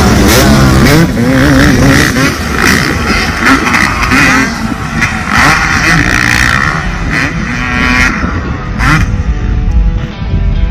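Motocross dirt bike engines revving up and down as the riders work the throttle over jumps and corners, loudest in the first second as a bike passes close, then farther off.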